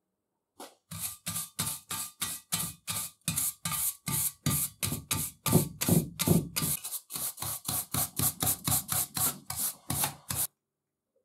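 Stiff hand wire brush scrubbed back and forth over the rusty, painted cast-iron frame of an arbor press, about three strokes a second, to loosen rust and flaking paint. The strokes are heaviest around the middle and stop shortly before the end.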